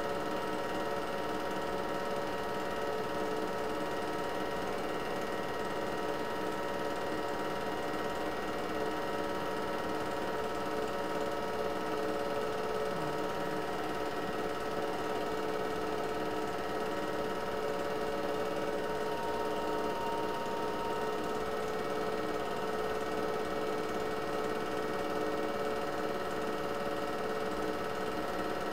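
Regular 8mm film projector running: a steady mechanical whir with several constant humming tones underneath.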